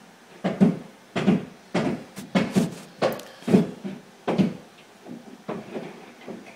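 Hammer blows from roof repairs overhead, heard from the room below as a dozen or so dull thuds at an irregular pace with no steady rhythm.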